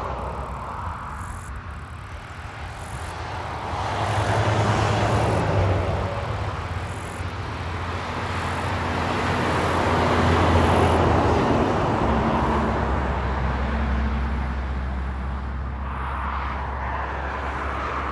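Highway traffic going by: a diesel tipper truck towing a dog trailer, with other vehicles, passing close, its engine drone and tyre noise over a steady low hum. The sound swells about four seconds in and again, loudest, about ten seconds in.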